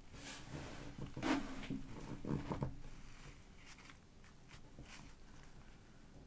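Pages of a thick collage-filled paper journal being turned and handled: papery rustling, loudest about a second in, easing off after about three seconds to a few faint ticks and taps.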